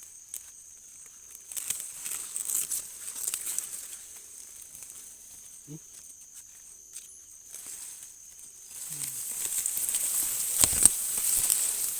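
Corn plants' dry leaves rustling and crackling as someone pushes through them on foot. The rustling grows louder and busier about nine seconds in, with a sharp knock near the end.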